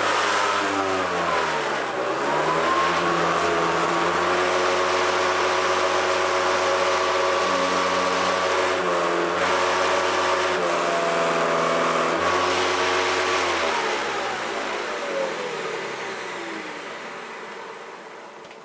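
Hoover Decade 800 Heavy Duty upright vacuum cleaner running steadily, its motor pitch dipping briefly and recovering twice, then winding down with falling pitch as it is switched off near the end. The owner noticed some vibration during the run, which he is unsure whether to put down to the brush roll or the fan.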